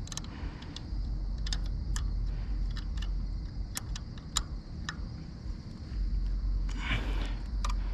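Light metallic clicks and taps at an irregular pace from an Allen wrench working on a bicycle's locked-up rear brake, with a brief rustling swell about seven seconds in.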